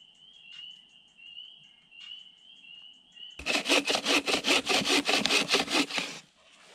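A hand saw cuts through a dry branch in quick, even back-and-forth strokes, starting about three seconds in and stopping after about three seconds. Before it, a steady high-pitched trill goes on in the background.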